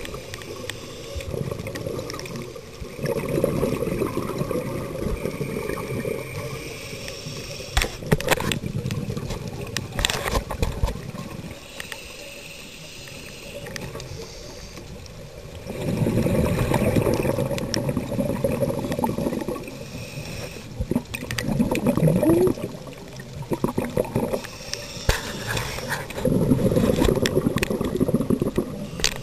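Scuba diver breathing through a regulator underwater: hissing inhalations alternating with long bubbling exhalations, several breath cycles, with a few sharp clicks.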